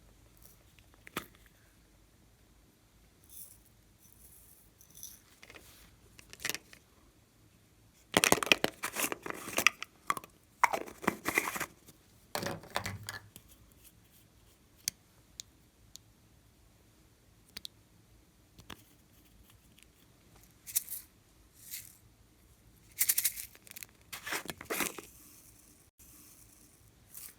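Clear slime being worked by hand, with sticky crackling and popping as it is squeezed and pulled apart, in two louder bouts separated by scattered small clicks.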